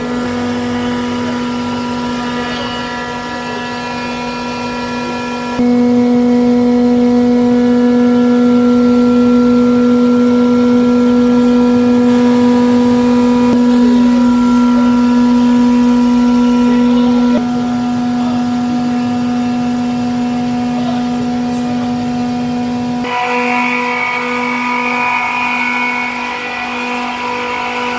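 Bitzer HSN 7461-70 semi-hermetic screw refrigeration compressors running under test: a loud, steady mechanical hum with a strong constant tone and its overtones. It grows louder about six seconds in and eases back about eleven seconds later.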